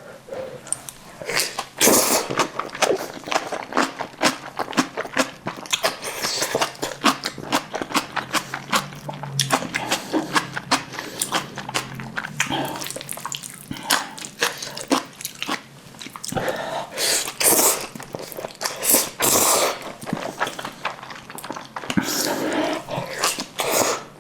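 Close-miked eating sounds of a meal of Jjapaghetti black bean noodles and spicy kimchi: continuous chewing and biting with many small wet clicks, and a few longer, louder noisy stretches in the last third.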